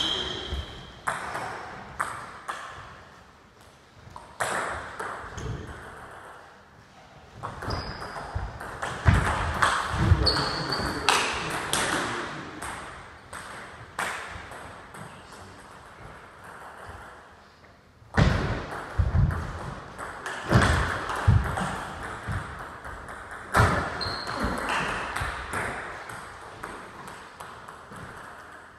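Celluloid table tennis ball clicking off bats, table and floor in a reverberant hall, in uneven runs of sharp ticks, with some heavier low thuds among them.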